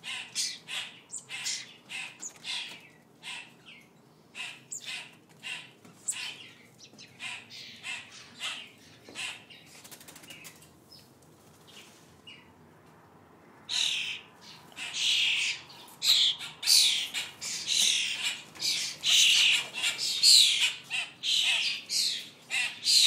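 A roomful of small songbirds (starlings, sparrows, finches, robins and grackles) chirping and squawking in quick short calls. They fall quiet for a few seconds near the middle, then start up again, louder.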